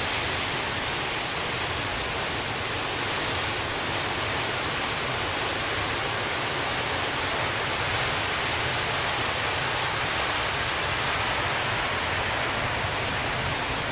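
Heavy ocean surf breaking on the beach: a steady, even rush of waves and whitewater, with no single crash standing out.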